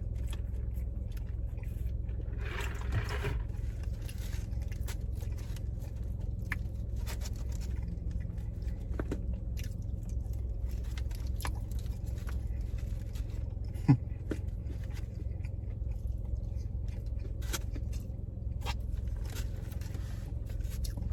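Close-up chewing and crunching of fried seafood, with scattered small clicks and scrapes, over a steady low rumble inside a car. One sharper click stands out about two-thirds of the way through.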